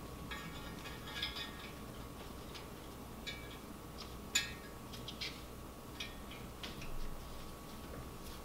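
Scattered light clicks and taps, the sharpest about four seconds in, as a steel main bearing shell is handled and pressed into its saddle in a BMW N54 aluminium engine block by gloved hands. A faint steady hum is heard throughout.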